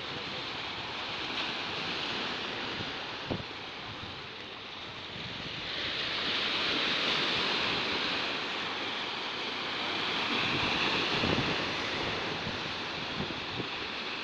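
Sea waves washing in and breaking against shoreline rocks, swelling louder twice, with wind buffeting the microphone.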